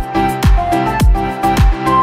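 Background music with a steady kick-drum beat, about two beats a second, under held chords and a melody.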